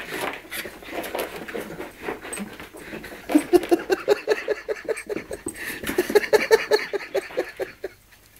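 West Highland white terrier puppy panting fast and evenly, about five breaths a second, winded from rough play. The panting starts about three seconds in and stops shortly before the end.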